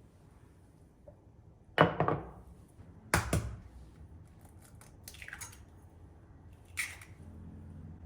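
Kitchen handling sounds: a few sharp knocks and clatters of utensils and dishes set down, with a short rustle in between. Faint background music comes back near the end.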